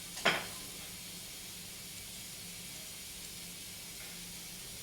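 Steady low hiss of background noise with a faint low hum, after one short sharp sound about a quarter of a second in.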